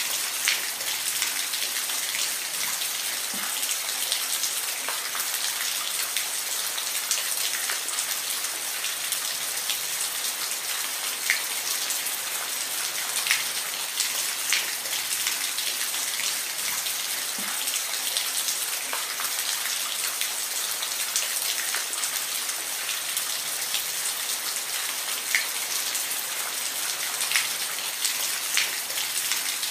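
Steady rain: an even hiss, with single drops ticking out sharply here and there.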